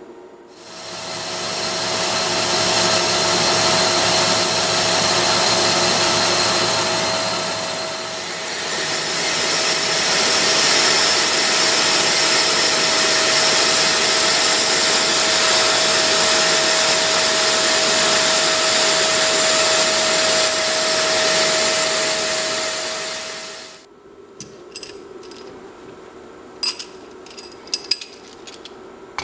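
Belt-driven vertical lathe attachment on a metal shaper running while a cutting tool turns a metal disc: a loud, steady machine noise with a constant whine that dips briefly about eight seconds in and cuts off abruptly near the end. Then come a few light metal clicks as a tapered roller bearing is handled against a steel flange.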